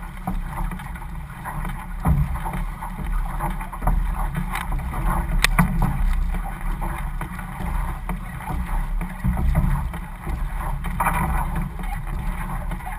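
Outrigger canoe under paddle: water rushing along the hull and paddle blades splashing, with a few sharper splashes, over a steady rumble of wind on the microphone.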